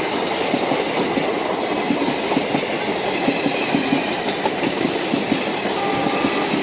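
Battery-powered Rail King toy train running on its plastic track set, wheels clattering rapidly over the track joints over a steady running noise.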